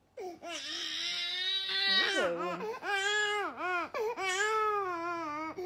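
Baby boy of about four and a half months crying hard: a run of wailing sobs, each rising and falling in pitch with short catches of breath between, starting a moment in.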